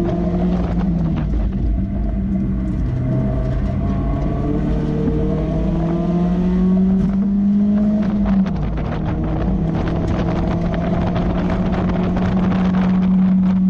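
Mazda Miata's four-cylinder engine accelerating hard on track, heard from the open-top cabin with wind noise. The revs climb steadily for several seconds, drop sharply at an upshift about eight seconds in, then climb again.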